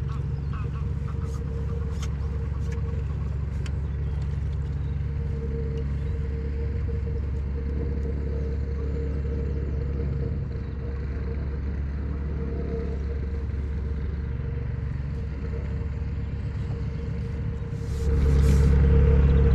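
A steady low rumble with a constant hum running through it, a few faint clicks in the first few seconds, growing louder near the end.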